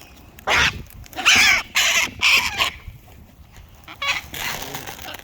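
Wild cockatoos screeching: a run of harsh calls in the first half, then more after a short pause near the end.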